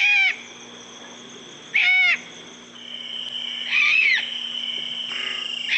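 An owl calling: short, arched, rising-then-falling calls repeated about every two seconds, over a steady low background hum.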